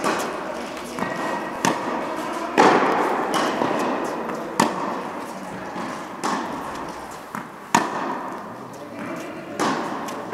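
Tennis rally: racket strikes and ball bounces about every second, each a sharp pop with a long echo in the large indoor hall.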